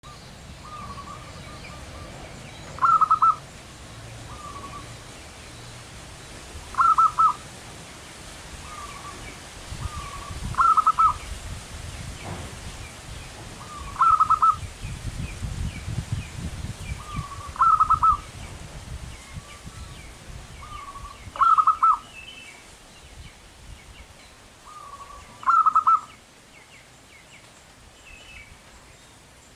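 Zebra dove (perkutut) singing its cooing phrase seven times, about every four seconds: a couple of soft coos followed by a loud, rapid rolling coo.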